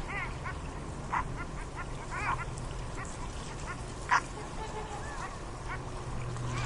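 A dog yipping: several short, high calls about a second apart, the loudest one about four seconds in.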